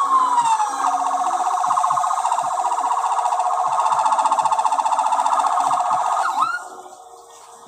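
Ambulance siren: a wail falling in pitch over the first second, then a fast warbling yelp that cuts off with a short upward chirp about six and a half seconds in.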